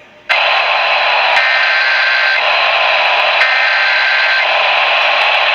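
Radio static hiss carrying two one-second bursts of Emergency Alert System data tones a second apart: the warbling two-pitch squawk of an EAS SAME header announcing an alert.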